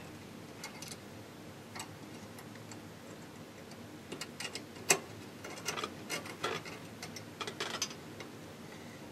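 Small brass parts and a fine metal tool clicking and tapping against a brass model locomotive as the parts are fitted into place. The light clicks are scattered and irregular, come more thickly in the second half, and include one sharper tap about five seconds in.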